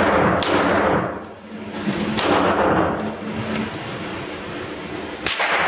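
Pistol shots fired one at a time, a second or more apart, each with a sharp crack and a reverberant tail in an indoor shooting range.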